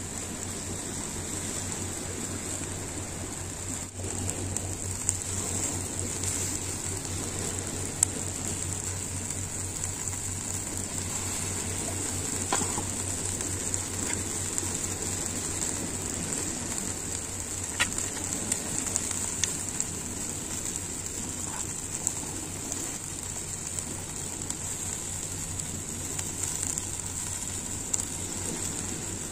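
Patin fish grilling with its seasoning paste on, sizzling steadily with a few faint clicks and pops.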